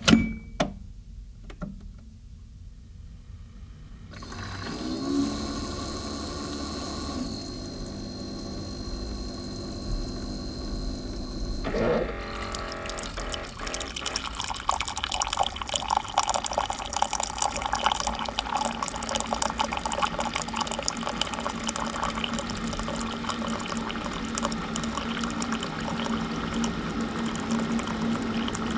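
Keurig single-serve coffee maker brewing a K-cup: a few clicks near the start, then its pump starts about four seconds in with a steady hum. From about twelve seconds in, hot water sputters through the pod and pours into the cup as a steady rush of liquid with crackling.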